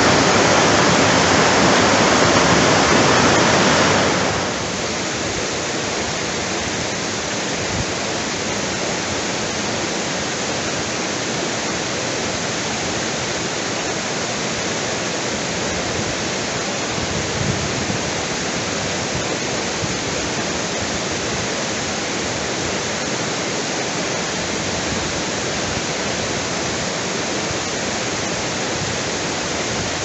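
Waterfall's falling water rushing as a steady hiss, louder for the first four seconds and then dropping a step to a lower, even level for the rest.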